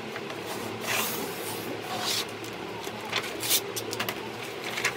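Stiff brown insulation paper rustling and crackling in several short rushes as it is unrolled and smoothed flat by hand, over a steady low hum.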